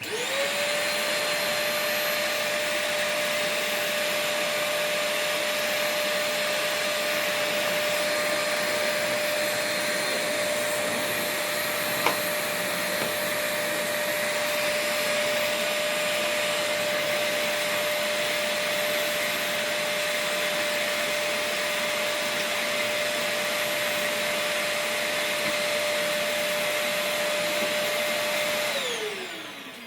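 Small 800 W Electrolux cylinder vacuum cleaner switched on: its motor spins up to a steady whine over a rush of air, runs evenly with one sharp click partway through, then is switched off near the end, the whine falling as the motor winds down.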